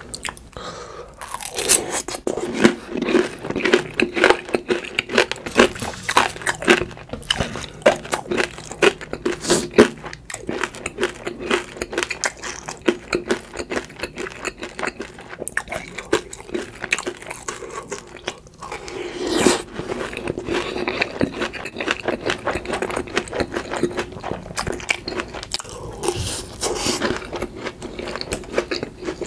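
Rapid, continuous crunching and chewing of crispy breaded fried food, dense crackles throughout with the loudest bites a couple of seconds in and again just before the twentieth second.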